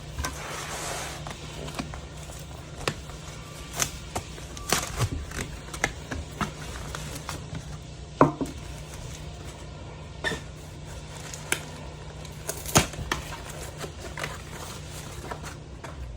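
Hands opening packages and handling small hard pieces: irregular clicks, rustles and knocks, with a sharper knock about eight seconds in and another near thirteen seconds. A steady low hum runs underneath.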